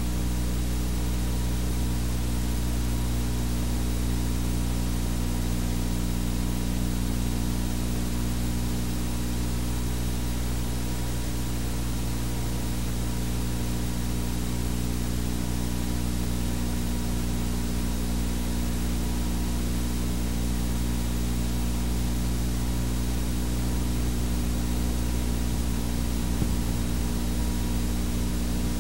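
Steady hiss with a low electrical hum under it and no programme sound: the noise floor of an old analogue video or tape transfer.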